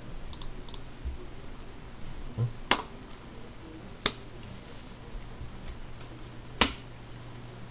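Three sharp clicks, spaced a second or two apart, as stiff chrome trading cards are handled and laid on the table, over a low steady electrical hum.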